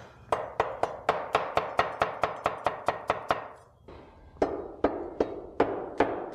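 Chinese cleaver chopping a carrot on a wooden cutting board in quick knocks, about four a second. The knocks stop for a moment a little past the middle, then start again slower and speed up.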